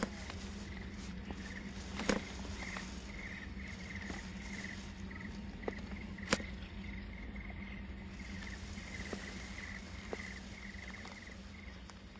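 Insects chirping in repeated short pulsed trills, over a low steady hum, with a few sharp clicks, the loudest about two seconds and six seconds in.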